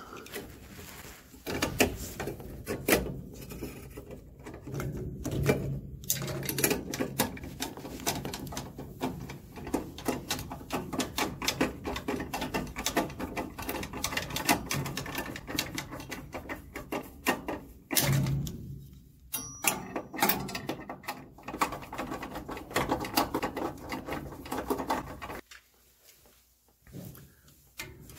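A socket ratchet clicking in quick runs, mixed with tapping and clatter of hand tools and parts against the furnace's sheet-metal cabinet.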